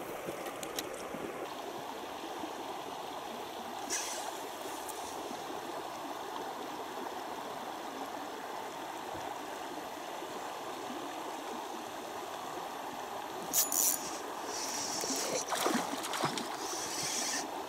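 River water running and gurgling steadily. A few short sharp sounds come in about four seconds in and again near the end.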